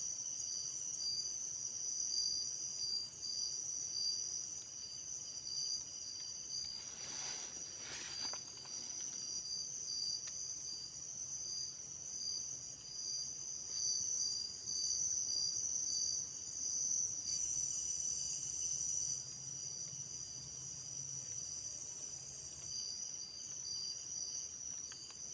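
Insects, crickets or similar, singing in a steady chorus of several high-pitched trills layered over one another, with a brief rustling noise about seven seconds in.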